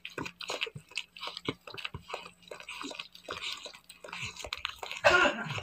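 Wet, irregular clicking and smacking from a mother dog licking at her newborn puppy and its birth sac during whelping. About five seconds in, a short louder sound falling in pitch.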